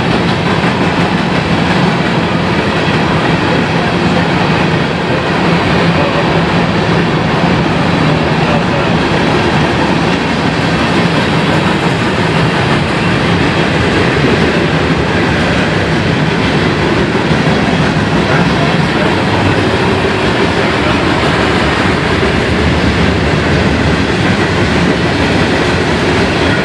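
Cars of a mixed freight train rolling past: the loud, steady noise of steel wheels running on the rails.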